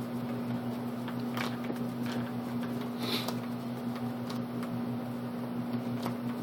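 Steady low electrical hum of the room, with a few soft clicks and taps.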